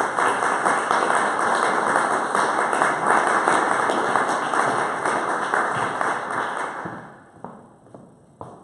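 Audience applauding, a dense clapping that dies away about seven seconds in, leaving a few last claps.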